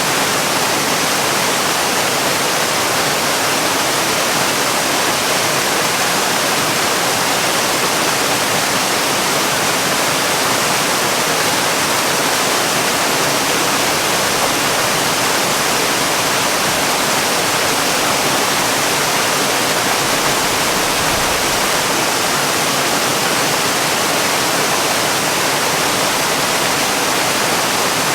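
Waterfall: a steady, even rush of falling water at a constant level, with no change in its sound.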